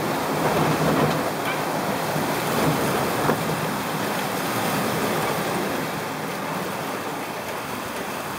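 Water rushing and churning in the wake of a sailing catamaran running fast downwind, with wind over the boat.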